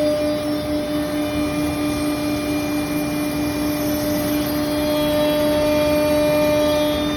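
CNC router spindle running steadily: a constant whine over an even rush of noise.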